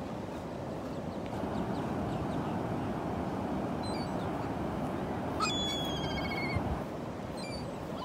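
Surf washing up on a sandy beach in a steady wash, with a few short bird calls: one about four seconds in, a quick run of repeated calls about five and a half seconds in, and another near the end.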